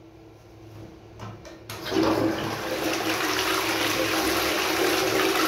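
A 2009 Roca Victoria toilet flushing a bowl packed with toilet paper and kitchen paper: a few faint clicks, then about two seconds in the rush of water starts and runs on steadily.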